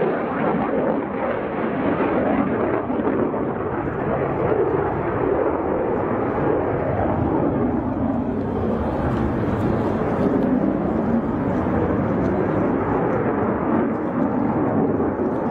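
JF-17 Thunder fighter's single RD-93 turbofan roaring as the jet flies display manoeuvres: a steady, loud rushing jet noise with no breaks.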